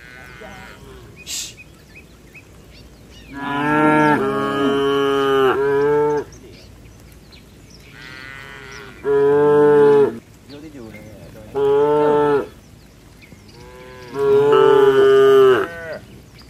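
Cattle mooing: four loud, drawn-out moos a few seconds apart. The first is the longest at nearly three seconds; the others last about a second each.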